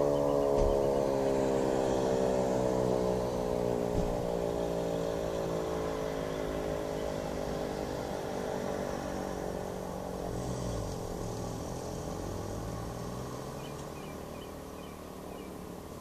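Elektror electric motor siren, which the uploader takes for an L141, winding down after switch-off at the end of a fire alarm test: its tone slides slowly lower in pitch and fades away.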